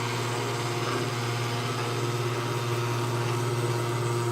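Steady low machine hum with a few constant tones above it, running evenly without change.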